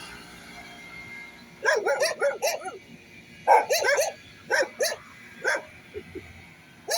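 Dogs barking: a quick run of barks starts about a second and a half in, a second run follows about two seconds later, then a few single barks.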